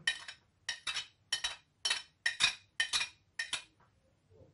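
Metal spoon scraping and clinking against a porcelain plate and bowl as grated onion is scraped off. About a dozen short, sharp strokes come roughly three a second and stop about three and a half seconds in.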